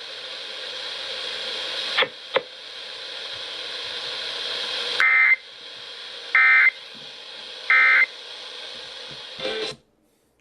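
Emergency Alert System end-of-message data bursts over the radio: three short warbling digital tone bursts about a second and a half apart, heard over steady radio hiss. Two sharp clicks come about two seconds in, and the audio cuts off just before the end.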